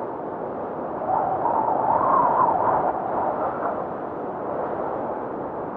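Snowfall ambience track: a steady rushing noise that swells into a louder, wavering gust about a second in and eases back down after about three seconds.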